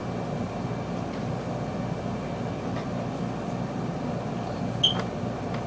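Room air conditioner running with a steady hum, and a single sharp click near the end.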